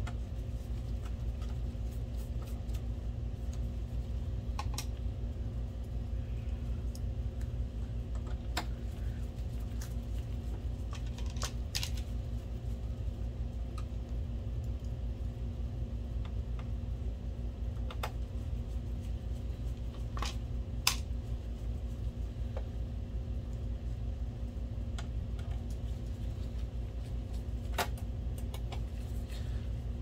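Scattered sharp clicks and light knocks of screws and a screwdriver being worked into the plastic chassis of a Dell 1650 projector, a few seconds apart, over a steady low hum.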